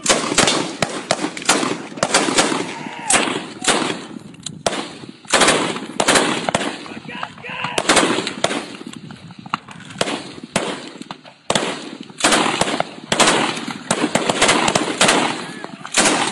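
Gunfire from soldiers' rifles: sharp single shots and rapid bursts fired in quick succession, overlapping, with brief lulls.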